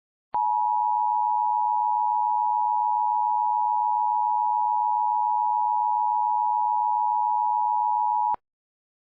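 Emergency Alert System attention signal: a steady two-tone electronic tone held for about eight seconds, then cutting off abruptly. It announces that an emergency message is about to be read.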